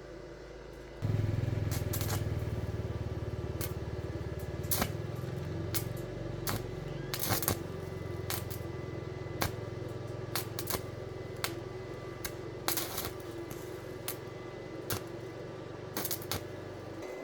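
A low machine hum switches on about a second in and cuts off near the end, with scattered sharp metallic clicks and clinks throughout.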